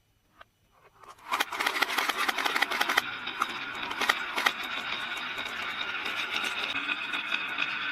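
Many marbles released onto a marble run: a sudden dense clatter of clicks about a second in, settling into a steady rolling rattle with scattered knocks as they run down the track.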